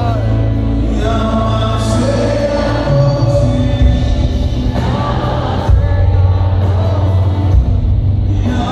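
Live church worship band playing with singing, a strong steady bass line underneath.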